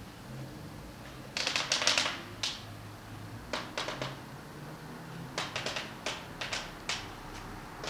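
Irregular sharp clicks and ticks in short rapid runs, the densest about a second and a half in, more around four seconds and again between five and seven seconds, over a faint steady low hum.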